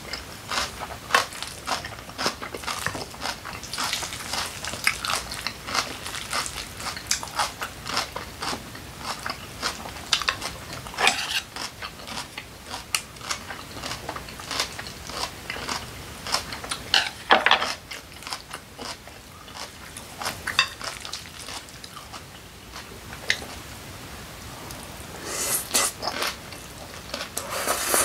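Close-miked chewing and crunching of a mouthful of yeolmu (young radish) kimchi bibimbap, an irregular run of wet crunches and smacks. It thins out for a few seconds and then picks up again near the end, with occasional knocks of wooden utensils in the glass bowl.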